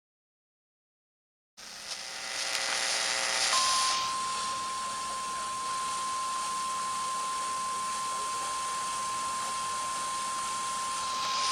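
NOAA Weather Radio warning alarm tone: after a moment of dead air, receiver static hiss comes in, and about three and a half seconds in one steady, single-pitched alarm tone starts and holds without a break. The tone signals that a new warning is about to be broadcast.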